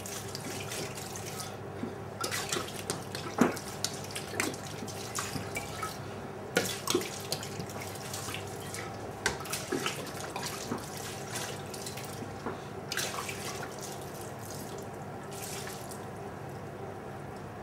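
Red wine poured from a bottle onto chicken pieces and vegetables in a stainless steel hotel pan, a steady pour with irregular small splashes and drips; near the end the pour moves to a second pan.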